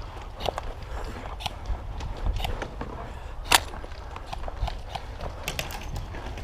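Airsoft guns firing scattered single shots as sharp, irregular snaps, the loudest about three and a half seconds in.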